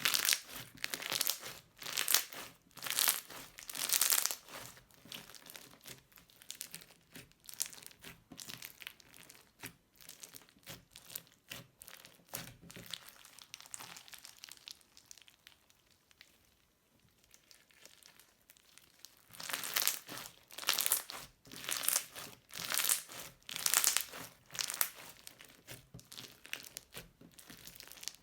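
Crunchy slime being worked by hand, a dense run of short crackly crunches. They are loud at first, soften for a long stretch with a brief lull, then grow loud again about twenty seconds in.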